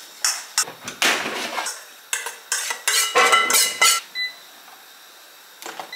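Metal spoon scraping and clinking in a stainless steel bowl of seasoned vegetables, with the loudest clanks and ringing metal between three and four seconds in. Just after four seconds comes a short electronic beep from the air fryer's control panel.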